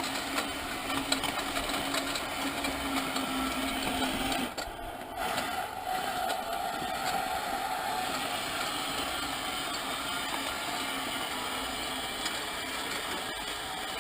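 Electric drive motors of a remote-controlled Mead Mightymouse crawler dozer, converted from gas to electric, whining as it drives. The whine dips briefly about four and a half seconds in and comes back at a higher pitch.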